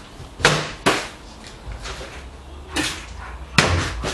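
Sharp knocks of hard objects striking: two in quick succession about half a second in, and two more near the end, the last the loudest.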